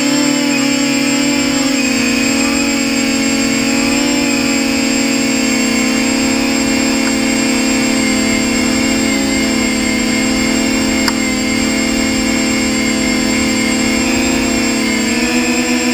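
Versacopter 280 quadcopter's motors and propellers whining steadily in flight, heard up close from the onboard camera, the pitch wavering a little as the throttle changes. A single faint click about eleven seconds in.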